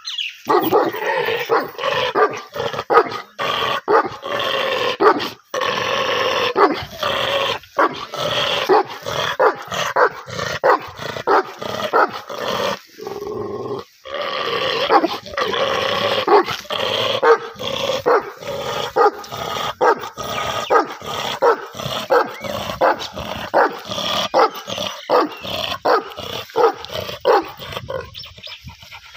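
Large Bully Kutta-type mastiff barking aggressively over and over, almost without pause.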